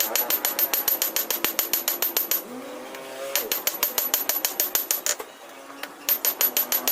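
Power hammer striking steel in fast runs of blows, about seven a second, with a bright metallic ring. There are three runs separated by short pauses.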